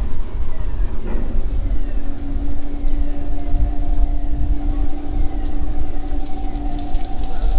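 Low, uneven rumble with a steady machine hum that comes in about two seconds in, its lower tone stopping shortly before the end.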